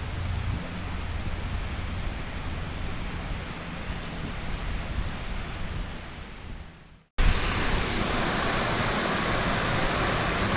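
Steady rush of falling water from a waterfall, with a low rumble. It fades out about seven seconds in and cuts straight back in, louder and brighter.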